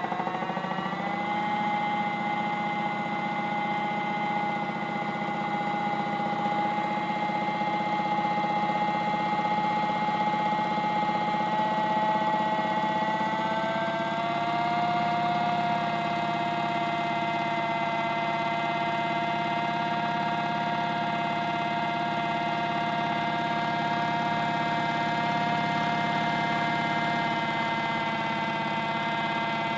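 Motor of a modified Miele toy washing machine running a wash, a steady whine that steps up slightly in pitch about halfway through.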